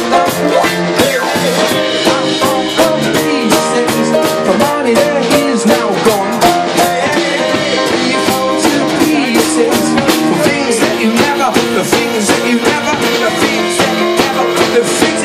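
Ska band playing live: a man singing over a drum kit with steady cymbal strokes and guitar.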